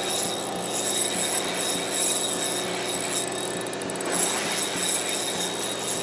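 Daiwa Exist spinning reel being cranked steadily, its gears and line roller whirring as a hooked squid is reeled in, over the constant drone of the boat's machinery.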